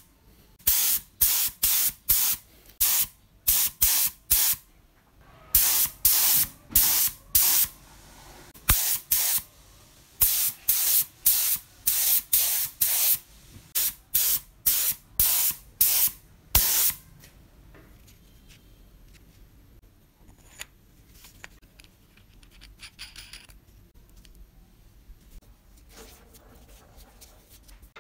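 Aerosol spray paint can hissing in short bursts, about two a second, laying the top coat on an antique meat grinder. The bursts stop after about seventeen seconds, leaving only faint handling noise.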